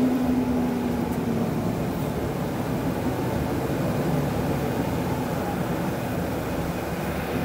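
Inside a moving city bus: a steady rumble of engine and road noise, with a held engine tone that fades out about a second and a half in.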